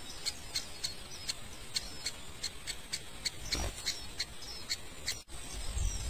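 High, thin peeps from nestling birds, repeated evenly about four times a second, typical of chicks begging at the nest. Near the end the sound cuts out for a moment and a low rumble starts.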